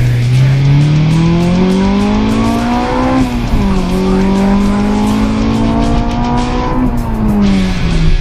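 Honda CRX del Sol engine under hard acceleration, heard from inside the cabin. The revs climb for about three seconds, drop suddenly with an upshift, climb more slowly in the next gear, then fall away near the end as the throttle comes off.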